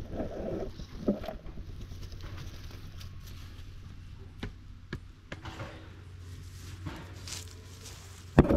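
A hand tool working dry soil by a plant: scattered scrapes and knocks, a brief scrape about seven seconds in and a loud thump near the end, over a steady low hum.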